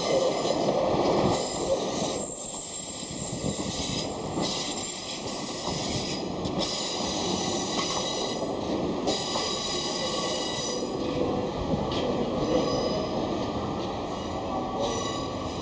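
A train running along the rails with a steady rumble, its wheels squealing on the track in a high, ringing squeal that comes and goes several times.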